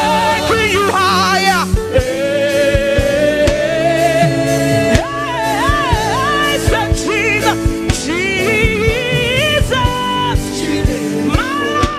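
Live gospel band playing with held chords and a steady drum beat, while a voice sings long runs with heavy vibrato.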